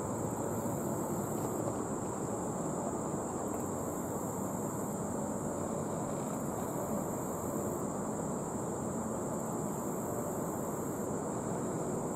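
Summer insect chorus: a steady high-pitched drone with a higher buzzing call that comes and goes every few seconds, over a low steady rumble from a diesel freight train still far off.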